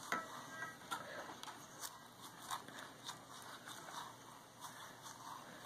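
Faint, uneven scrubbing of a wet makeup brush rubbed back and forth against a silicone brush-cleaning scrubber, with soft scattered ticks and swishes.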